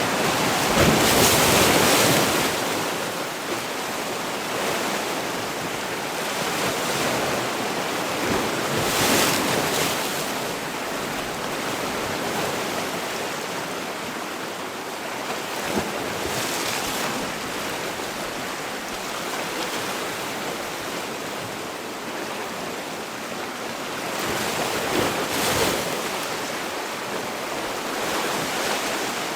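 Sea waves breaking in a continuous wash of surf, with a louder crash swelling up about every seven to eight seconds.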